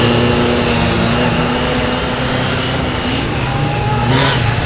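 Police motorcycle engine running through a slow technical course at a steady note, which drops and shifts about three seconds in and changes again near the end as the throttle is worked.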